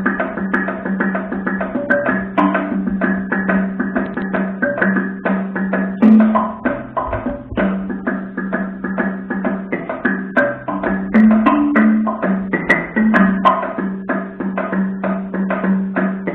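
Experimental percussion music: fast, dense struck percussion strokes over low pitched notes that shift now and then.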